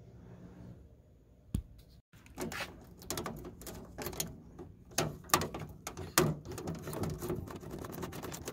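Small clicks, taps and scrapes from hands handling the interior door hardware of a 1973–87 Chevy C10 pickup, around the window sill and lock knob, starting about two seconds in after a near-quiet start with a single click.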